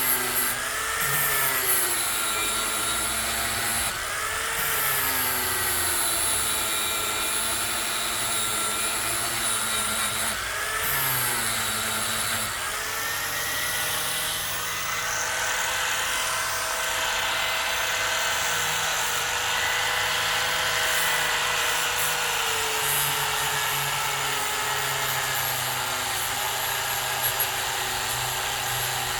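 A cordless power tool's motor running steadily as it works clamped steel, heating the metal blue. Its whine sags in pitch and recovers three times in the first dozen seconds as it is pressed into the work, then holds steady.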